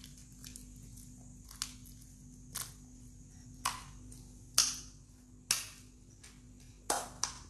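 Children's hands slapping and pressing into a puddle of glue slime on a tiled floor: short wet smacks, about seven of them, roughly one a second.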